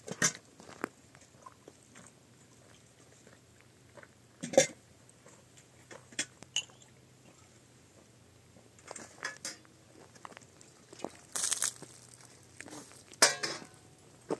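Scattered clinks and knocks of dishes and tea things being handled and set down, with a brief rustle near the end.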